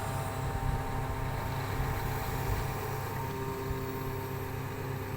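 Engine of a construction machine running steadily, a low hum with several steady tones above it.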